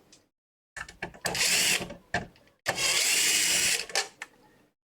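Small electric screwdriver with a T9 Torx bit whirring in two short runs while undoing screws: one of about half a second, then one of about a second. Small clicks come before and between the runs.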